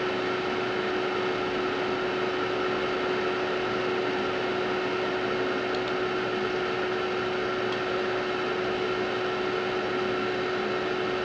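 Amiga 4000's hard drive and power supply fan running: a steady whirring noise with a constant, even whine over it.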